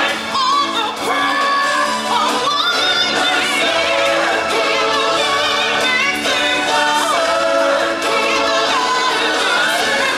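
Music with a singer and a choir over full instrumental backing, the sung notes wavering with vibrato.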